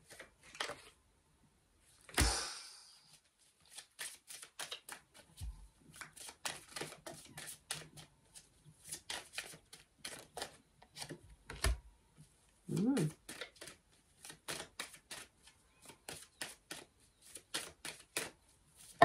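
Tarot deck being shuffled by hand: a steady run of soft card flicks, several a second. There is a single thump about two seconds in, and a brief hum from the shuffler near the middle.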